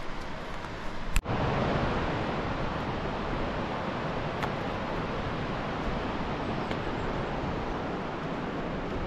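Rushing mountain river: a steady, even rush of white water. It sets in suddenly, louder, about a second in, after a quieter stretch of outdoor noise.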